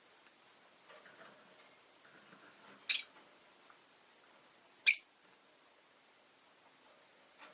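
Rosy-faced lovebird giving two short, high-pitched calls, about three seconds in and again two seconds later.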